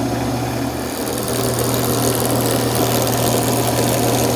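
Craftsman wood lathe running at speed with a steady motor hum, a bloodwood pen blank spinning on the mandrel.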